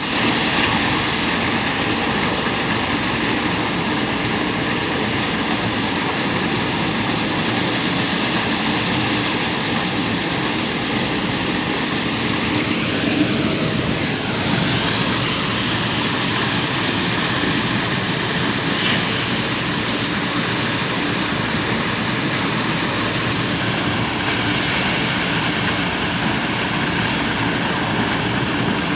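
A machine running steadily with a continuous mechanical drone at an even level. Partway through there is a brief change in its pitch.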